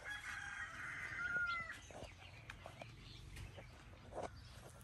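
A rooster crowing faintly: one long crow of nearly two seconds, then only a few faint scattered ticks.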